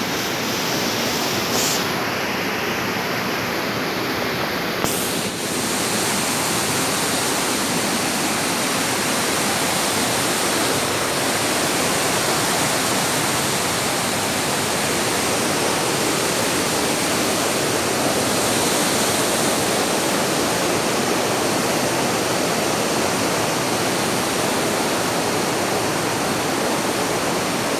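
Rushing water, a steady even rush with no break.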